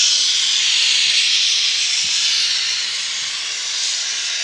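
Small industrial saddle-tank steam locomotive standing and venting steam: a loud, steady hiss.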